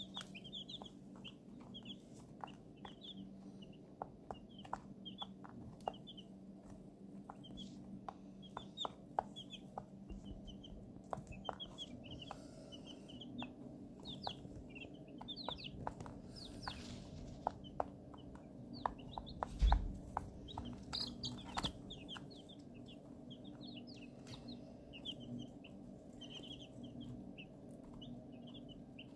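A brooder of eighteen young chicks peeping constantly, many short high calls overlapping, with scattered sharp clicks over a steady low hum. A dull thump about twenty seconds in is the loudest moment.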